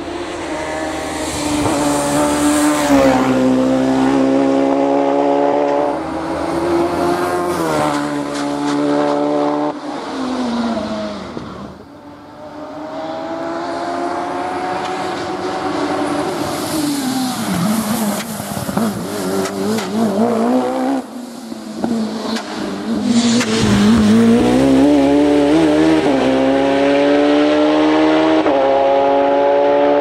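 Hillclimb racing car's engine at high revs, its pitch climbing and then dropping again and again as it changes gear and lifts off. Loudness dips briefly about twelve seconds in and again around twenty-one seconds.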